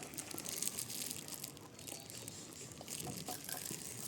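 Plastic snack wrappers crinkling and rustling as they are handled, a dense run of small irregular crackles.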